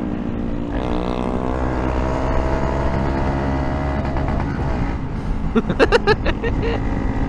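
Honda Monkey 125's single-cylinder four-stroke engine running on the move, its revs falling about a second in and then holding fairly steady. A short burst of sharp clattering comes around six seconds in.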